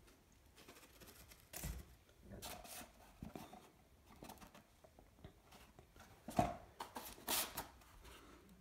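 Cardboard firework packages being handled: scattered rustles, scrapes and light knocks as tubes and boxes are picked up and set down, the loudest knock about six and a half seconds in.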